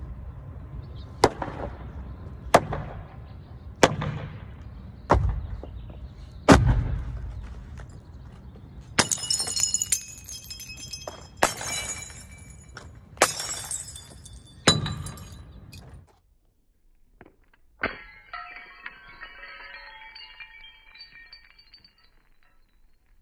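Baseball bat knocking five times at an even pace, then glass jars and bottles smashing under four heavy swings, each crash with bright ringing shards, over a low wind rumble on the microphone. The rumble drops out suddenly, and a last hit is followed by a few seconds of tinkling glass.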